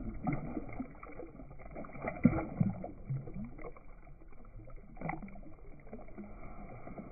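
Water splashing and sloshing at the side of a kayak as a speckled trout is released by hand and swims off, with irregular small splashes, the biggest about two seconds in and again about five seconds in.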